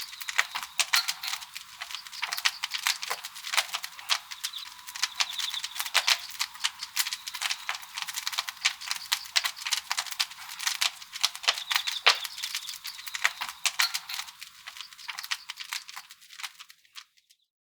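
Wood fire crackling in the firebox of a traditional Korean wood-fired kiln: dense, irregular snaps and pops that fade out near the end.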